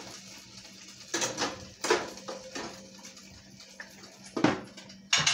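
Kitchen utensil knocking and clinking against cookware as a hamburger patty is cut in the middle: a handful of separate knocks scattered through, the last ones near the end the loudest.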